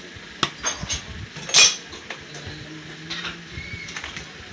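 Hammer tapping a new oil seal into a motorcycle engine case cover, striking an old seal laid on top as a drift. A few sharp metallic knocks, the loudest about a second and a half in.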